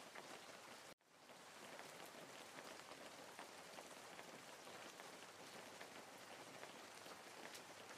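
Faint, steady rain-like patter: an even hiss with scattered light drops. It cuts out for a moment about a second in, then resumes.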